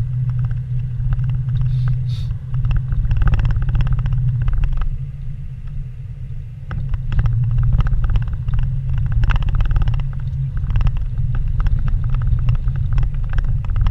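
Vehicle driving over a rough dirt road, heard from inside the cabin: a steady low engine and road rumble with scattered knocks and rattles from the uneven surface, easing off briefly about five seconds in.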